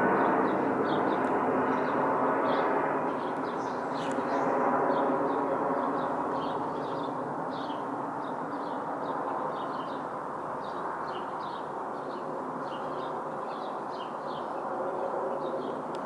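Jet airliner engine noise, a broad rush that fades gradually over the first several seconds as the plane moves away, with small birds chirping repeatedly over it.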